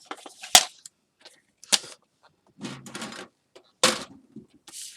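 Cardstock and crafting tools being handled: three sharp clacks, the first and loudest about half a second in, then one near two seconds and one near four seconds, with rustling and sliding of paper between them.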